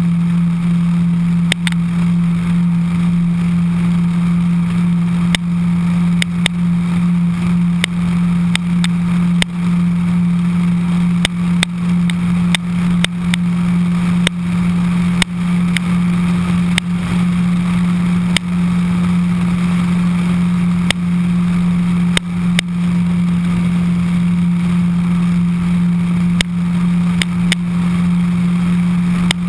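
Suzuki Hayabusa's inline-four engine running at a steady cruising speed, a constant even drone with no revving, mixed with rushing air. Short sharp ticks come every second or two.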